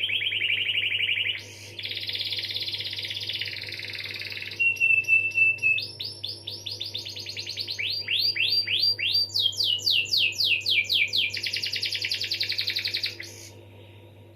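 Domestic canary singing a long rolling song of fast trills. A short held whistle comes about four and a half seconds in, followed by runs of quick sweeping notes, and the song breaks off about thirteen seconds in. A faint steady low hum lies underneath.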